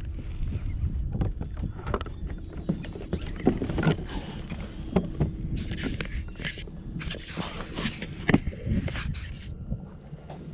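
Knocks and scrapes of handling on a kayak, over a low rumble of wind on the microphone, with two short stretches of hissing about halfway through.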